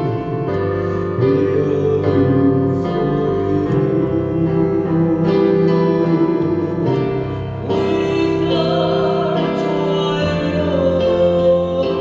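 Live church worship music: a song sung over piano or keyboard accompaniment, with sustained chords that change every second or two.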